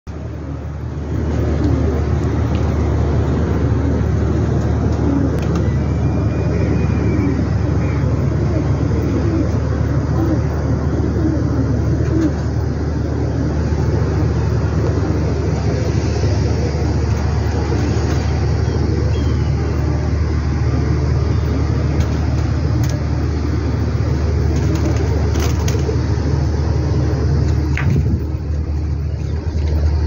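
Steady low mechanical hum and rumble, coming in about a second in and holding even throughout.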